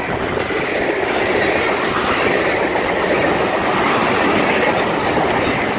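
Freight train cars rolling past: steady, continuous noise of steel wheels running on the rails.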